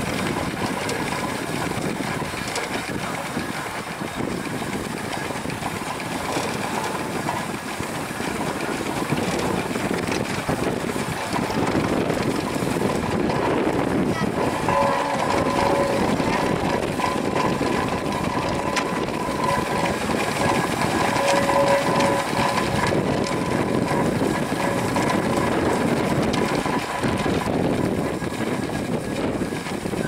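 Fowler BB1 steam ploughing engine running as it works its plough cable, a steady dense mechanical clatter and rush of working steam machinery. A steady whine joins in from about halfway and drops out a few seconds before the end.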